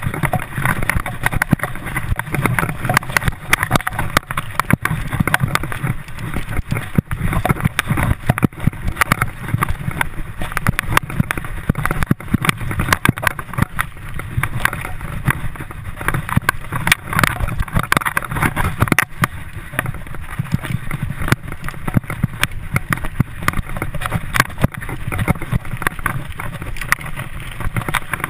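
Mountain bike riding fast down a dirt trail: wind buffeting the microphone, tyre rumble, and a constant rattle of clicks and knocks from the bike over the bumps.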